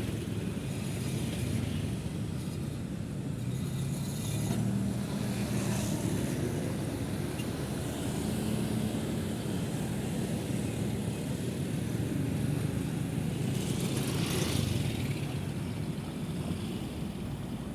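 Steady city road traffic: the engines of cars and motorcycles running as they pass in a continuous hum, with a louder vehicle going by about five seconds in and another about fourteen seconds in.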